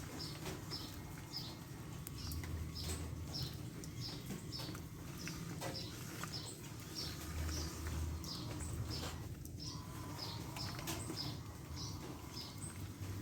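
A bird chirping over and over, short high chirps about two to three a second, over a low rumble that swells twice.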